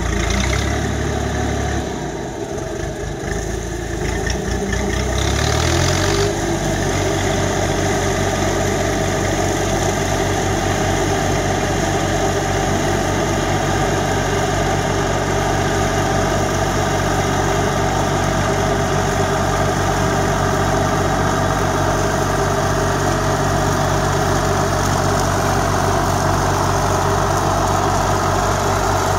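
Holder A55 articulated tractor's diesel engine running with a Röll Compact double rotary mulcher mowing grass. The engine note rises about five seconds in, then holds steady.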